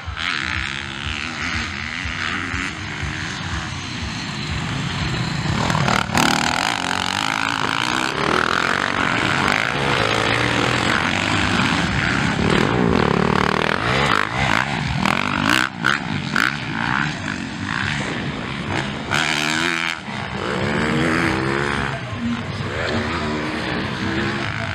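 Motocross dirt bike engines racing, revving hard and backing off again and again, so the engine pitch keeps climbing and falling as the bikes jump and ride past.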